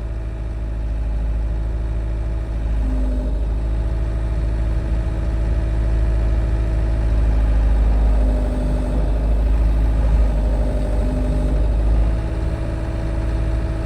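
Tractor diesel engine running steadily, a little louder through the middle as the forks lift and guide a dual wheel onto the hub, with a few short whines over it.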